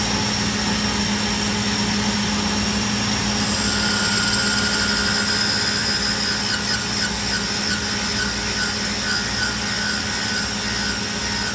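Tsugami BS20-III Swiss-type CNC lathe machining under flood coolant: a steady mechanical hum and high whine over the hiss of cutting oil spraying. About three and a half seconds in, a second, higher whine joins and wavers toward the end.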